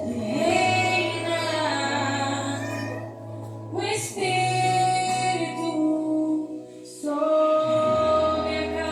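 A woman's voice singing a slow worship song in long held notes, in three phrases, over sustained low chords.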